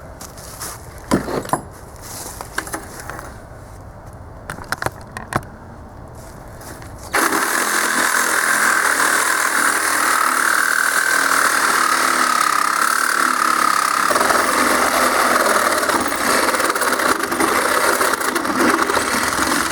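Cordless reciprocating saw cutting through a steel air compressor tank: a few knocks and clicks as the saw is set against the metal, then about seven seconds in the saw starts suddenly and runs steadily with a wavering whine as the blade saws the steel.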